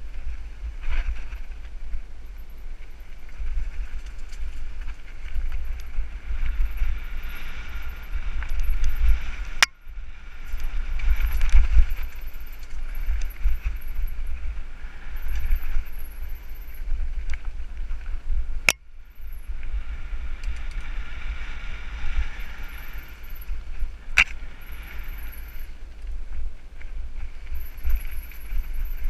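Mountain bike riding fast down a dirt singletrack: wind rumbling on the camera's microphone over tyre and bike noise, with three sharp knocks spread through it.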